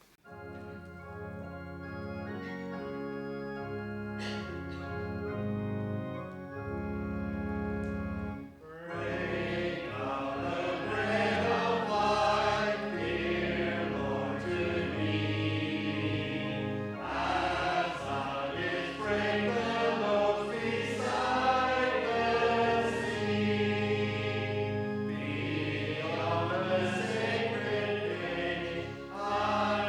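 A hymn: an organ plays the introduction in steady held chords, then the congregation joins in singing about eight and a half seconds in, with the organ accompanying.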